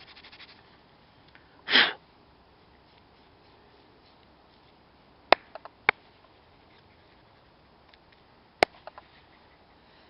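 A man sniffs once, sharply, about two seconds in. Later there are three sharp clicks or taps: two about half a second apart in the middle, one near the end.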